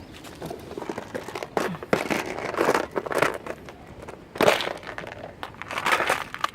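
Irregular rustling and crinkling of things being handled close to the microphone, in uneven bursts, the loudest about halfway through.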